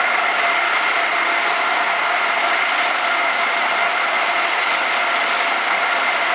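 Plastic woven-bag circular loom running, its shuttles circling the reed ring: a steady mechanical clatter with a constant whine, unchanging throughout.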